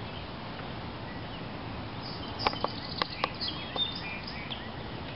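Steady outdoor background noise with birds chirping in the second half. Several sharp clicks or taps start about halfway through.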